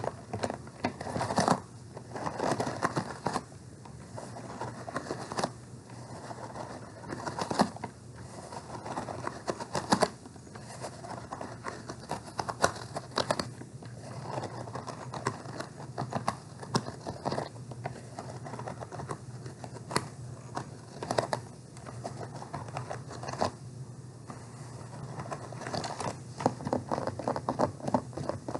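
Hands handling a purse: irregular tapping, scratching and crinkling on it, with sharp clicks every few seconds.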